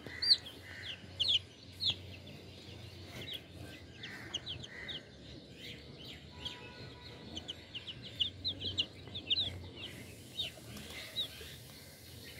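Young chickens peeping: many short, high, falling cheeps from several chicks at once, coming in bunches and thinning out near the end.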